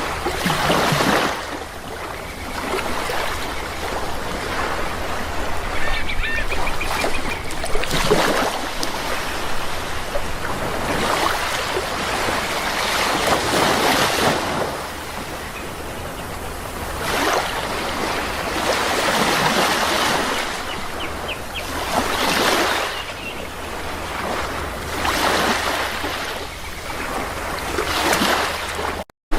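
Sea waves washing in, in surges every few seconds, with a few short bird calls over them. The sound cuts out for an instant near the end.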